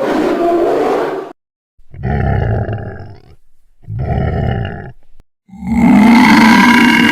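Animated dragon growl sound effects: three short growls of about a second each with short gaps between them, then a longer, louder growl starting about five and a half seconds in.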